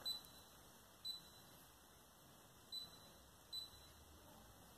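Brother PE460 embroidery machine's touchscreen beeping four times, a short high beep for each tap on its on-screen rotate keys, spread irregularly over the few seconds.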